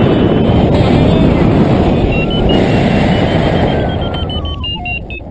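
Wind rushing over the microphone during a paraglider flight, easing near the end. Over it, from about two seconds in, a flight variometer beeps in short electronic tones that step in pitch, with a tone falling in steps about four seconds in.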